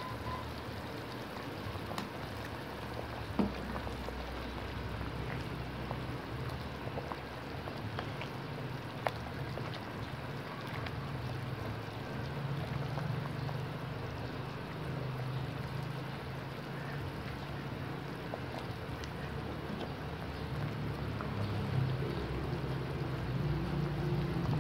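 Pork sinigang broth boiling in a stainless steel pot: a steady bubbling hiss over a low hum, with a few small sharp knocks, one about three seconds in and one about nine seconds in.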